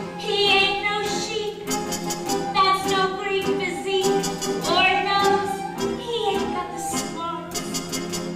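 Live theatre pit band playing a slow, jazzy show tune, its lead melody sliding and bending in pitch over sustained accompaniment.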